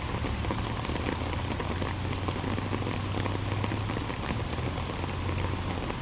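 Steady rain falling, with scattered sharp drop ticks over an even hiss and a low hum underneath that eases off near the end.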